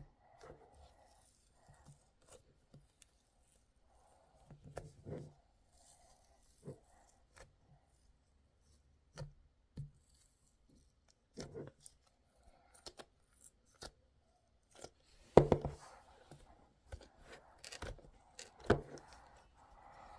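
Crumbly, icy grape ice cream being bitten and scraped: scattered crisp crunches at irregular intervals, with two louder ones near the end.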